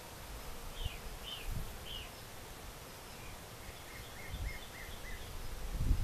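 Honey bees buzzing around an open hive as a steady low hum, with a few short high chirps and soft low thumps mixed in.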